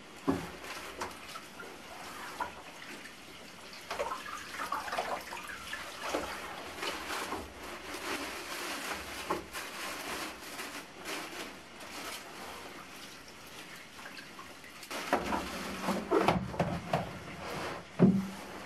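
Leafy bath brooms being turned and swished in a plastic basin of cold water, with water splashing, trickling and dripping. Near the end, plastic basins knock together as a second basin is set upside down over the first as a lid, ending in one loud bump.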